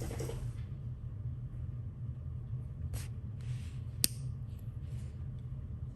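Light handling clicks from the small metal parts of a disassembled magnetic fidget slider, with one sharp click about four seconds in. A steady low hum lies underneath.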